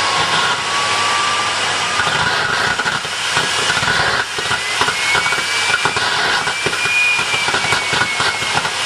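Homemade jet engine built from a car turbocharger, running with a loud steady roar and hiss, a thin turbine whistle climbing higher after about four seconds. The running turns uneven and crackly in the second half, the oscillation that the builder puts down to too much diesel and too little petrol/methanol in the fuel mix.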